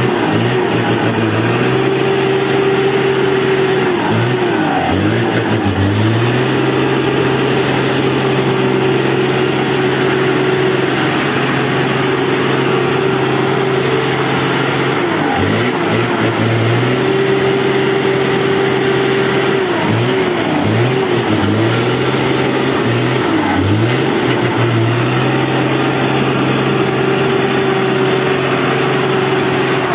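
Diesel engine of a four-wheel-drive Mack cab-over truck pulling hard up a muddy track, running at a steady pitch that dips and recovers several times: a few seconds in, around the middle, and repeatedly in the last third.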